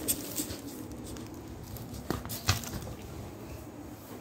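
A handful of sharp clicks and knocks from a metal food bowl standing on a plastic bag on a tiled floor, as two dogs eat fried rice from it. The two loudest knocks come about two and two and a half seconds in.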